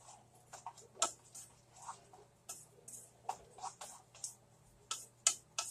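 Wooden spoon scraping and knocking against a frying pan while stirring fried hamburger with bell peppers and onions: irregular light clicks, a few a second.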